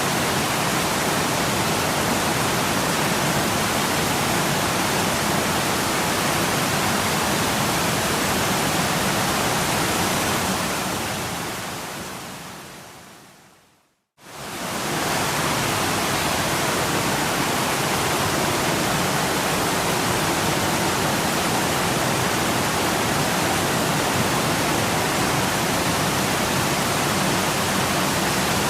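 Waterfall: a steady, even rush of falling water. About halfway through it fades out over a few seconds to a moment of silence, then comes straight back in at full level.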